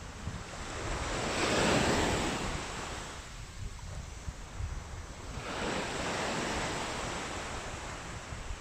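Small sea waves breaking and washing up a sandy beach, in two surges about four seconds apart, with wind buffeting the microphone.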